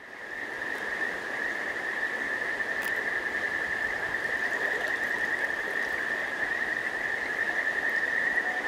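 Steady night chorus of calling animals: a dense, even trill held at one high pitch over a soft hiss, fading in at the start.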